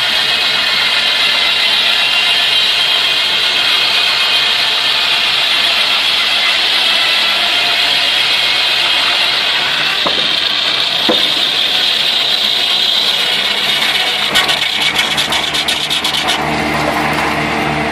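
Motor-driven sawmill saw cutting through wood, a loud steady whine with a hiss. Near the end comes a quick rattle of clicks, then the sound changes to a lower, steadier hum.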